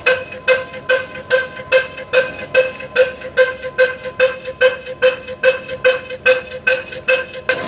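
Hassan company desi black engine, a slow-speed single-cylinder diesel rated 22 HP at 275 RPM, running steadily with loud, even exhaust beats at about two a second.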